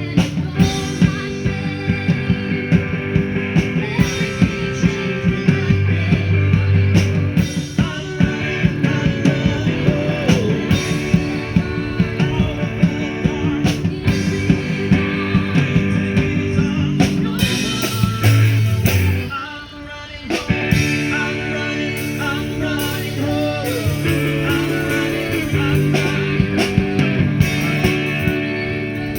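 Live rock band playing amplified through a PA during a sound check: electric guitar, bass and drums, with singing. The music dips for about a second a little past the middle, then picks up again.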